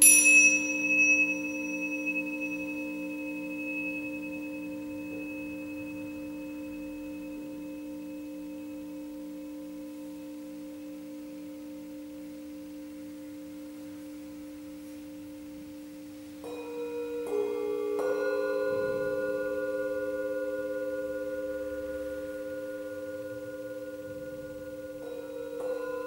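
Tingsha cymbals struck twice at the start, their high bright ring fading over a few seconds, above the steady ringing of Tibetan singing bowls. From about two-thirds of the way through, singing bowls are struck one after another with a mallet, and each strike adds a new ringing tone.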